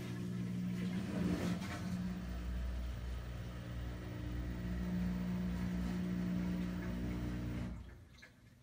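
Kenmore 41162 front-load washer making its loud, humming "eearhhh" noise with a little rattling during the rinse cycle, running steadily for about eight seconds before stopping near the end. The owner suspects it comes only when the water drains; its cause is unknown.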